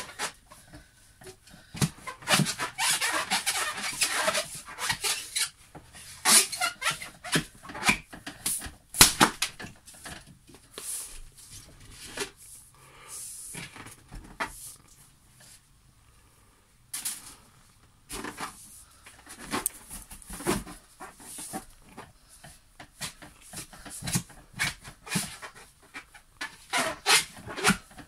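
Inflated latex balloons squeaking and crackling under a man's weight as he sits and bounces on them to burst them. One balloon bursts with a loud bang about a third of the way in.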